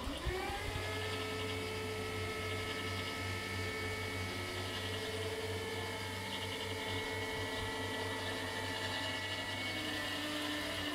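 Electric motors of a level-crossing barrier (type TD 96/2) raising the booms. The steady whine rises quickly in pitch as it starts, holds over a low hum, then drops to a lower tone just before it stops.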